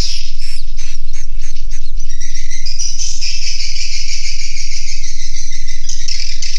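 Edible-nest swiftlets calling inside a swiftlet house: a run of short chirps about four a second, then a continuous buzzing chatter from about two seconds in.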